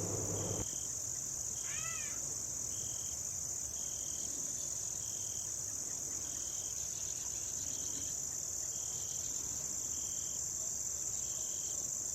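Chorus of singing insects: a continuous high-pitched trill with a second insect's short chirps repeating about once a second. A brief arched call sounds about two seconds in, and a low hum cuts off under a second in.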